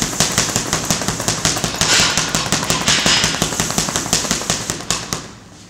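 Rapid, continuous flurry of boxing-gloved punches on a heavy punch bag, several thuds a second, stopping about five seconds in.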